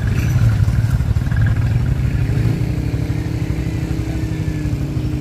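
Motorcycle engine running steadily while the bike rides along the road, a continuous low drone. A steady higher tone joins it from about halfway through.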